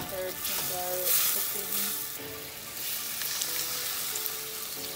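Onions and garlic sizzling as they fry in oil in a wok, stirred with a wooden spatula; the sizzle is loudest about a second in.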